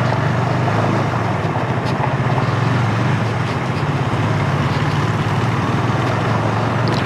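KTM 390 Duke's single-cylinder engine running steadily at low speed on a rough gravel track, with a steady hiss of wind and tyre noise over it.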